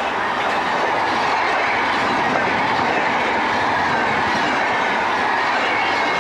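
Red passenger coaches of an express train passing at high speed close by: a steady, loud rush and clatter of wheels on rail, with a faint high whine riding over it.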